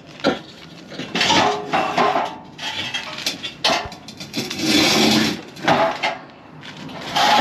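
Metal clanking and knocking from a car wheel being fitted to its hub, in several bursts about a second long with sharp clicks between them.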